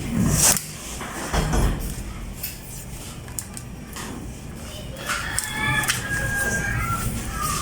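A rooster crowing, one long call starting about five seconds in, after a few knocks and rustles near the start.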